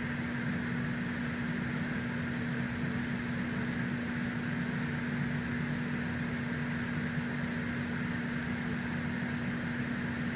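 Steady machine hum with one constant low tone under an even hiss, unchanging throughout.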